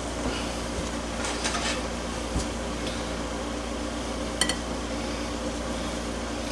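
Metal kitchen tongs clicking and scraping as a grilled squirrel is lifted off a baking tray onto a plate, with one sharp, ringing metal clink about four and a half seconds in. A steady hum runs underneath.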